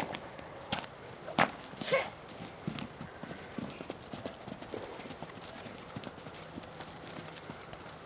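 Horse's hooves clip-clopping: a few loud, sharp knocks in the first two seconds, then lighter, uneven steps.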